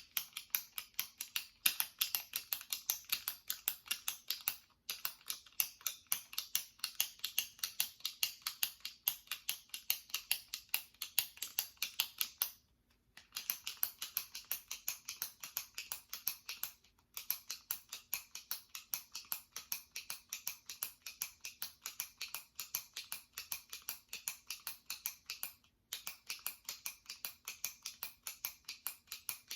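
A jumbo retractable pen's push-button clicking over and over, about four clicks a second, with a few brief pauses.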